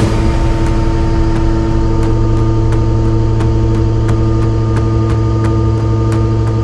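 Face mill on a Heller CP 6000 CNC machining centre cutting a solid ductile iron billet: a loud, steady cutting hum with a held tone, broken by sharp ticks about three times a second.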